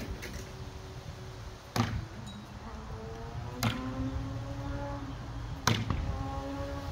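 Steel throwing knives, ground from 1084 flat stock, thrown one after another and striking a target: three sharp hits about two seconds apart, each followed by a ringing tone.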